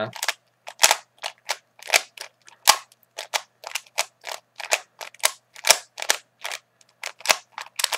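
Rubik's Cube being scrambled by hand: a quick, irregular run of plastic clicks as its layers are twisted, about three or four a second.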